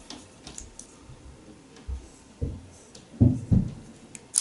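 Small plastic clicks and handling rubs from a GoPro Fusion 360 camera being worked in the hands while its doors are felt for and prised at. There are a few louder, short, low knocks around the middle, and a sharp click near the end.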